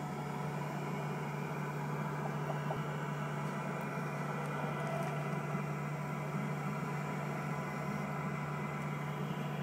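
Steady low mechanical hum with an even noise over it, unchanging throughout.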